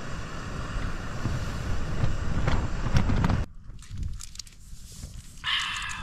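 Strong wind gusting against the open tent and the microphone, a rumbling buffeting with rising and falling swells. It stops abruptly about three and a half seconds in, leaving quiet small rustles and clicks.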